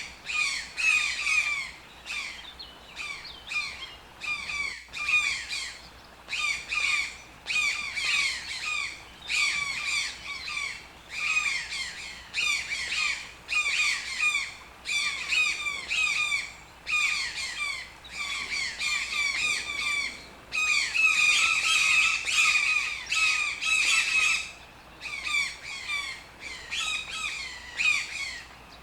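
Toucan calling over and over in short bursts of rapid notes, about one burst a second, with a longer unbroken run about three-quarters of the way through.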